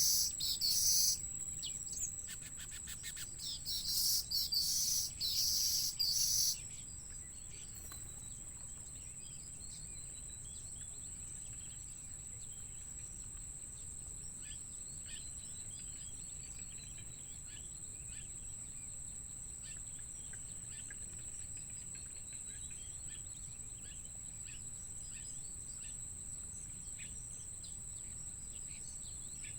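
A steady high insect trill, cricket-like, with faint short bird chirps scattered over it. For the first six seconds or so, a loud, pulsing, high-pitched buzz sits over it, then cuts off.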